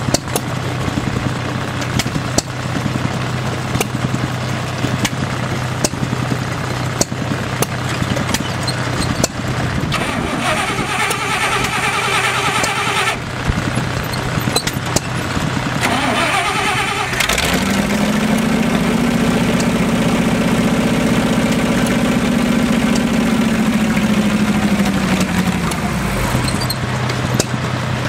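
Dodge 318 V8 in a 1944 International Harvester farm tractor running. It is revved up and held for about eight seconds past the middle, then drops back near the end, with scattered sharp clicks.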